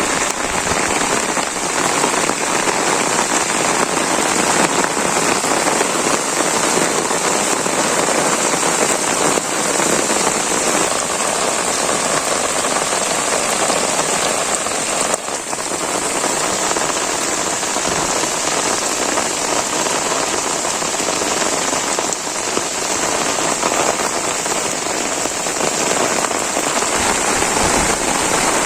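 Heavy, steady rain pouring down on surfaces around the microphone.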